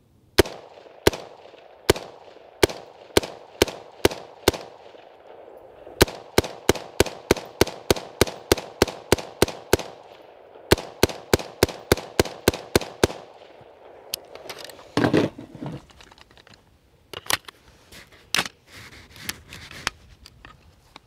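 Unlubricated, carbon-fouled BCM AR-15 rifle firing rapid single shots, about thirty in three quick strings, reaching about four shots a second, and still cycling. About two-thirds of the way in there is a brief noisy clatter, then a few fainter sharp cracks.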